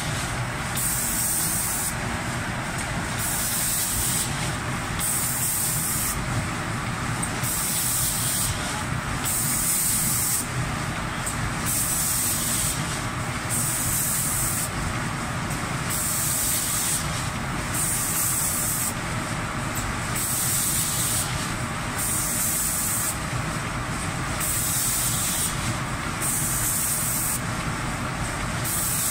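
Automatic spray-painting machine's paint spray guns hissing in repeated bursts, roughly one a second, as they spray atomised paint, over a steady mechanical hum.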